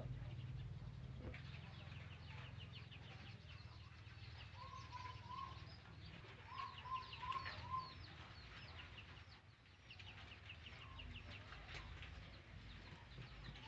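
Chickens clucking faintly in the background, with two short runs of clucks near the middle, over many quick high chirps that fall in pitch.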